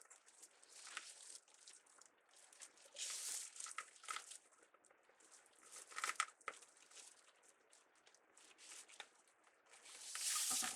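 Deco mesh and pipe cleaners rustling and crinkling as they are handled, in short irregular bursts, the loudest near the end.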